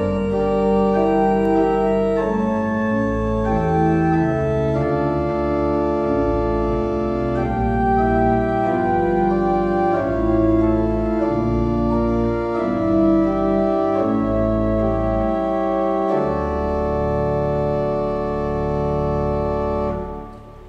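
Pipe organ playing a hymn in full, sustained chords that change every second or so, ending on a final chord that dies away just before the end.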